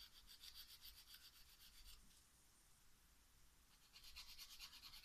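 Nail file rubbing back and forth across a fingernail in quick, faint strokes, stopping for about two seconds in the middle before starting again.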